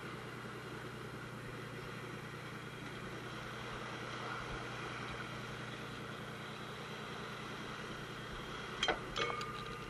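A fishing boat's engine running steadily. Near the end come two sharp metallic clinks, the second ringing briefly.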